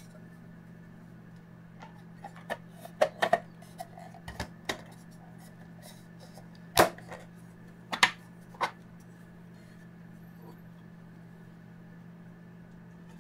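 A 3D-printed plastic drawer insert clicking and knocking against a small steel toolbox drawer as it is handled and set in place. Scattered light clicks come over the first few seconds, then two sharper knocks a little past the middle, over a steady low hum.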